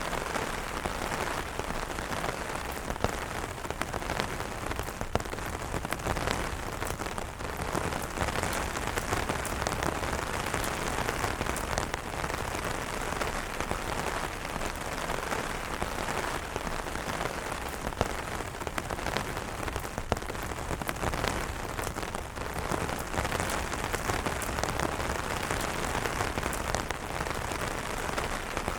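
Steady rain falling on umbrellas: a continuous hiss with scattered sharper drop hits throughout.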